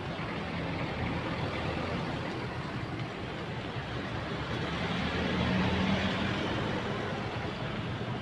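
Road traffic going by steadily, with one vehicle passing close and loudest about five to six seconds in.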